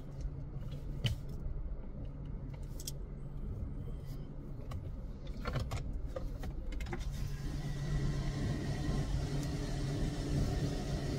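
Car engine idling with a steady low hum, with a few clicks and knocks. About seven seconds in, the surrounding noise grows louder.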